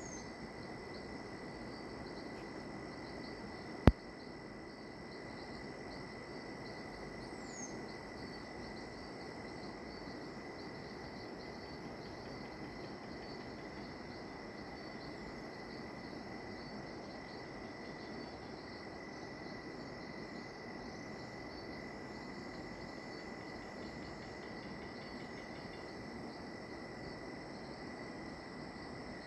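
Costa Rican rainforest insect chorus at twilight: crickets and other insects trilling steadily in several layered high tones, with a few short falling chirps above them. A single sharp click about four seconds in.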